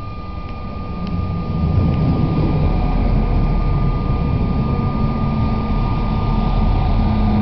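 Regional railcar arriving and passing close along the platform. Its low engine drone and wheel rumble grow louder from about a second in and then hold steady, with a steady high whine over it.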